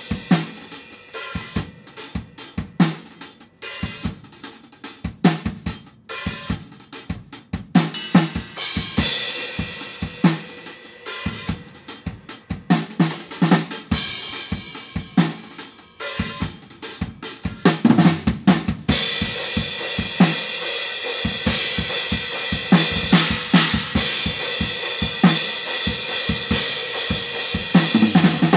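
Drum kit played along to a recorded song: kick drum, snare and cymbal hits in a steady groove, with the cymbals ringing continuously from about two-thirds of the way through.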